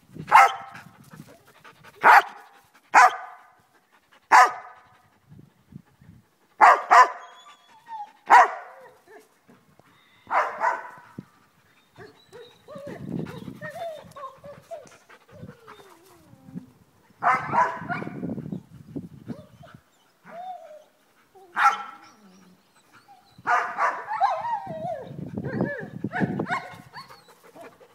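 Dog barking in play: about seven sharp single barks a second or two apart, then scattered barks over a lower, noisier sound later on.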